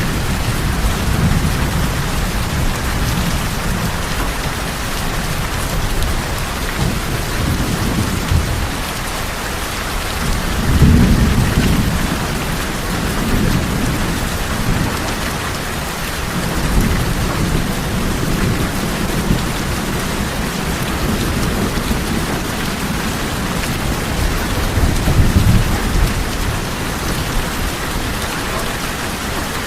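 Steady heavy rain falling on tin roofs, with low rolling thunder that swells about a third of the way in and again late on.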